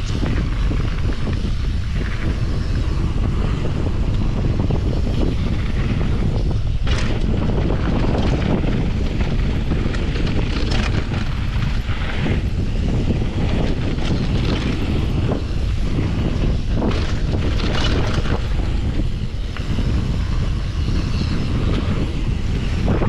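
Heavy wind noise on the camera microphone while a mountain bike rides fast down a dirt trail, with the tyres crunching over dirt and gravel and the bike clattering over bumps.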